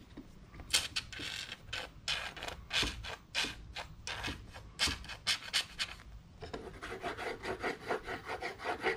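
Scratchy rubbing and scraping on masking tape as super glue is squeezed from its bottle and worked over the tape: a run of short strokes, irregular at first and coming faster near the end.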